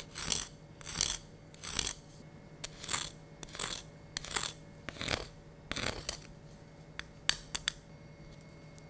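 Wooden pepper mill grinding black pepper in a series of about eight short crunching twists, a little under a second apart, with a few sharp clicks in between. The grinding stops a little before the end.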